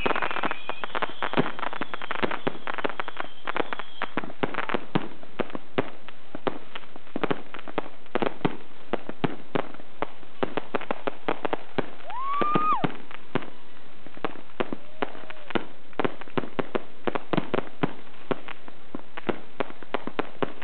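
Aerial fireworks going off: a rapid, irregular string of bangs and crackling pops, several a second, with a short rising whistle about twelve seconds in.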